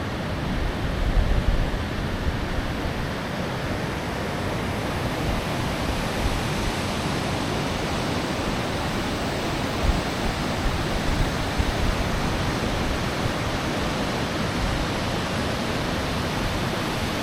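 Water rushing steadily through the outflow of a dam, an even hiss-like rush with no break.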